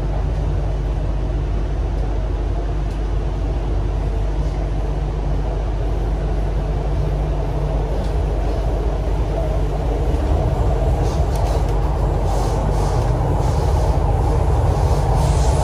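MTR Island Line Q-Train running, heard from on board: a steady low rumble of wheels and motors with running noise that grows a little louder in the second half.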